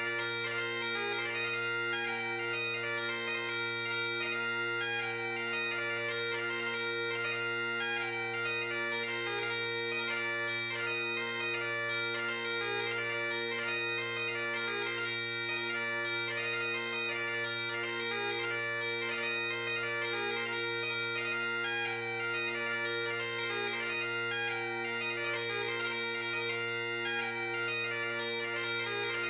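Bagpipe app on an iPad playing a tune: a steady drone sounds underneath while the chanter melody moves from note to note above it, played by fingering the on-screen chanter.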